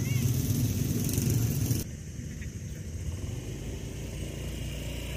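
Motor vehicle engine running, with a steady low rumble and hiss; about two seconds in the sound drops abruptly to a quieter, steadier rumble.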